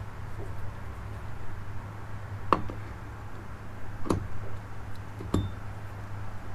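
Three sharp clicks of small metal parts or tools knocking against each other over a steady low hum.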